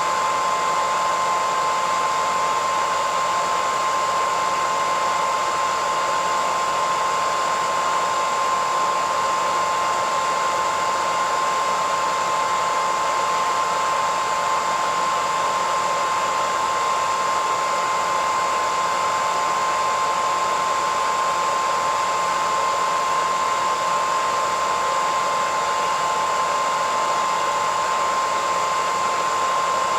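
Hairdryer running continuously: a steady rush of air with a constant whine. It is used as white noise to lull a baby to sleep.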